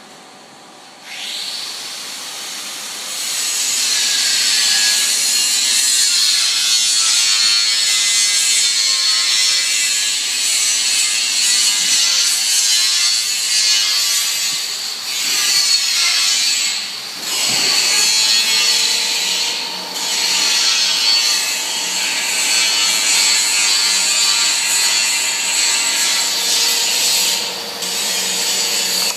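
Dean Smith and Grace 2112 centre lathe taking a cut: a harsh hissing scrape that starts about a second in, grows louder and keeps on with a few short dips.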